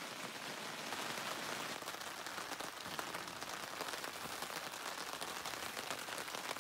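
Steady rain falling, with many separate drop hits heard through the hiss.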